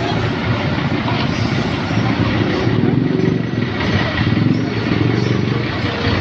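Motor vehicle engine running steadily, with voices mixed in.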